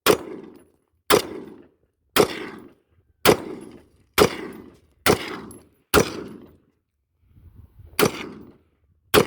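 AR-15 rifle firing nine single aimed shots, mostly about a second apart with a longer pause before the last two, each shot trailing off in a short echo.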